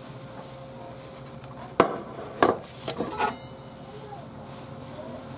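A metal baking tray is set down on a stainless steel counter. It lands with a sharp clank about two seconds in, then gives three lighter knocks as it is shifted into place.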